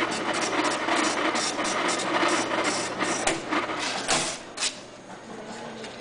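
A man's vocal imitation of an electric coffee grinder: a loud, harsh, rattling grind made with the mouth, which stops about three seconds in. A short, harsh burst follows about a second later.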